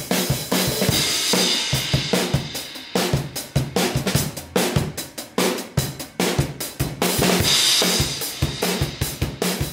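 Rock drum kit playing a steady beat, with kick and snare hits under hi-hat. Cymbal crashes ring out about a second in and again near the end.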